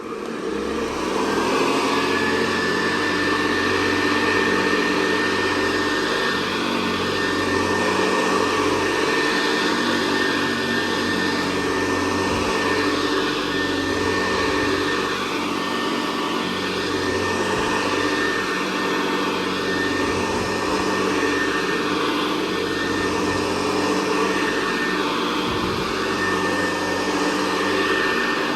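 Hoover Convertible Model 68 upright vacuum cleaner, a direct-air (dirty-fan) machine, switched on and coming up to speed over the first second, then running steadily with a high motor whine.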